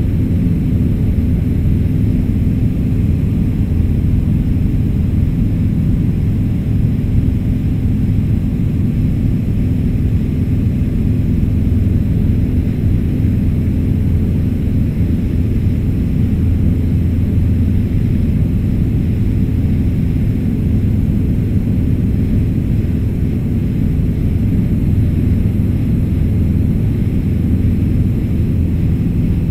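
Light aircraft's piston engine and propeller droning steadily in cruise, heard inside the cabin as a loud, even low drone with no change in pitch.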